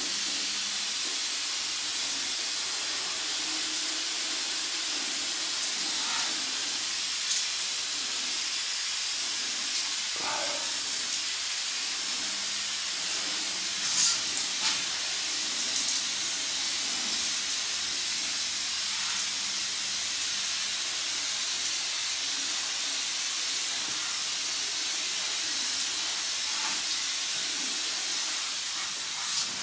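Steady hiss of a fine water mist from a hand-pumped pressure sprayer, misting a car's painted bonnet, easing off near the end.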